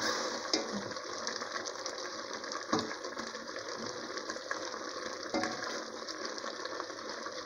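Carrot jam syrup bubbling in a steel pot while a wooden spoon stirs it, with a few light knocks of the spoon against the pot.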